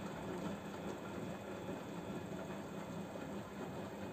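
Samsung WF0800NCE front-loading washing machine running its drum clean cycle: a steady mechanical hum with a low tone.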